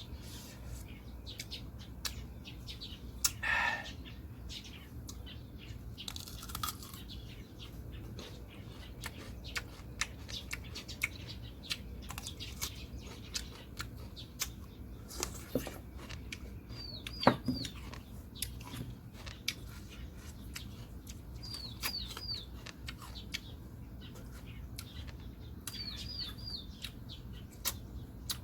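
Scattered sharp clicks and crunches of a person chewing crisp bilimbi fruit, with a bird in the background giving a quick three-note high chirp three times in the second half.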